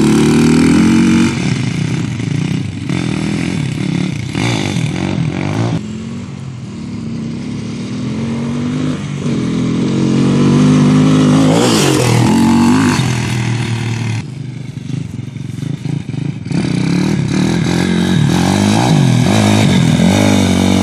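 Dirt bike engines revving up and down as the bikes ride past, the pitch rising and falling with the throttle. The loudest, closest pass comes about eleven seconds in.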